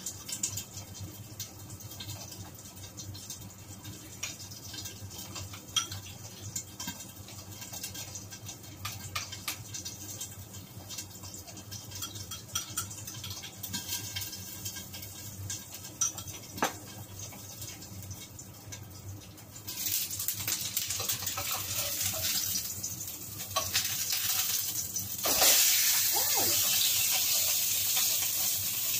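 Pork cheek frying in its own rendered fat in a lidded wok: a steady sizzle with scattered pops and spits of fat. The sizzle gets louder about two-thirds through, and louder still near the end when the lid comes off.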